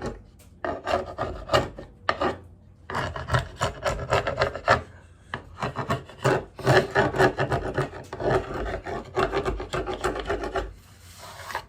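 Dried wood-glue squeeze-out being scraped off the face of a glued-up wooden board with a hand scraper: rasping strokes in several runs separated by short pauses.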